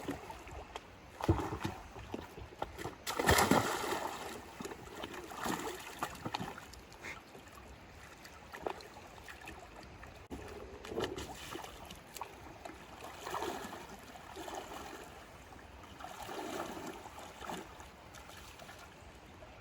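River water splashing and sloshing in uneven surges as a heavy, waterlogged timber plank is pushed through it, with the river running steadily underneath. The biggest splash comes about three seconds in.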